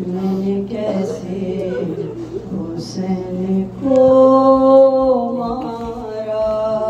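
Urdu salam sung unaccompanied in soz style, the voice drawing out long, ornamented, wavering notes. About four seconds in it settles on a long held note.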